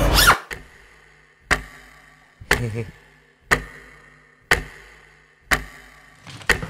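Clock ticking, one sharp tick about every second, each tick dying away quickly.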